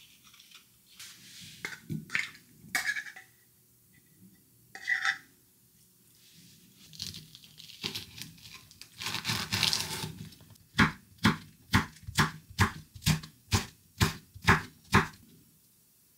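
A tuna can's peel-off lid pulled back in the first seconds, then a chef's knife chopping a green cheongyang chili pepper on a wooden cutting board: about a dozen sharp knocks, roughly three a second, in the last third.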